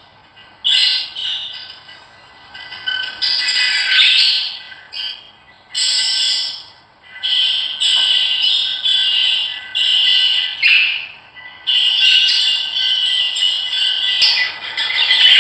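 A flock of small birds chirping and chattering in irregular bursts, with short pauses between them, becoming nearly continuous in the last few seconds.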